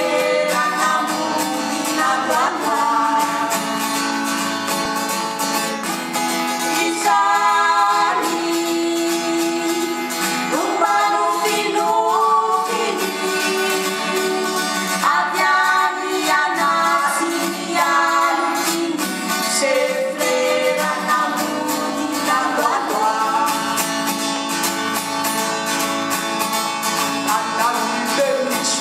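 Two women singing a song together with acoustic guitar accompaniment.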